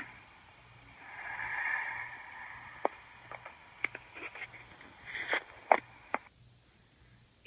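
A brief breathy hiss swells and fades about a second in, followed by a scatter of about ten sharp clicks and taps, the loudest near six seconds in.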